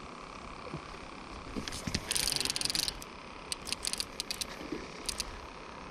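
Fishing reel being cranked in short spurts, giving a fast mechanical clicking: one dense run of about a second, then a few scattered clicks.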